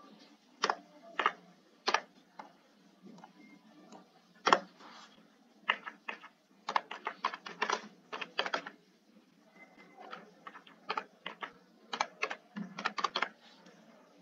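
Typing on a computer keyboard: irregular runs of key clicks with short pauses between them, the loudest single keystroke about four and a half seconds in.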